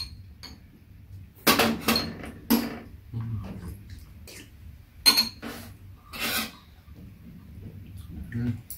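Metal spoons clinking and scraping against ceramic bowls of red bean porridge, a handful of sharp clinks, with short slurps as spoonfuls are sipped.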